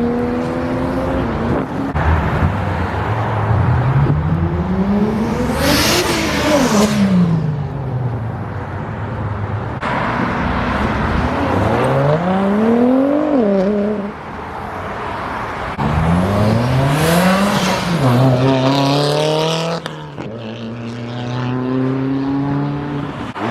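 Car engines accelerating hard, the revs climbing and dropping back several times, with a quick shift and a second climb near the end.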